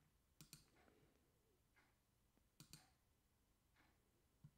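Near silence: room tone with a few faint clicks, two of them quick double clicks.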